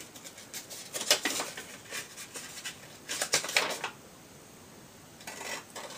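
Soft, intermittent rustling and small clicks of handling as a business card and other bits are taken from the pocket of a leather handbag, in a few short spells with a quiet pause about two-thirds of the way through.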